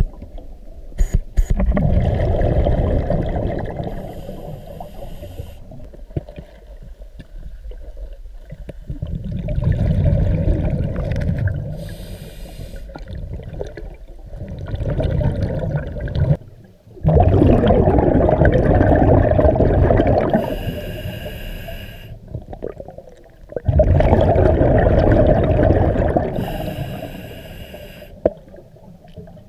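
Scuba diver breathing through a regulator underwater: long bubbling exhales alternating with short hissing inhales, about four breaths, one every six to seven seconds.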